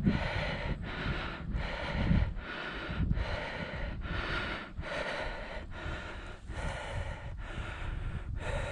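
A person breathing hard and fast, close to the microphone, each breath in and out following the last at an even pace, with low rumbles of wind or handling underneath.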